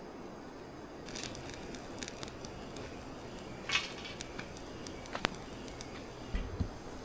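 Small wood fire of dry twigs and branches crackling in a folding fire stove, with irregular sharp pops and snaps.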